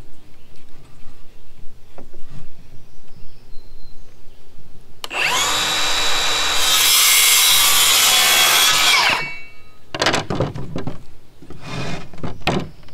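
Battery-powered cordless saw spinning up about five seconds in, cutting through a wooden strapping strip for about three seconds and winding down. Two shorter scraping noises follow near the end.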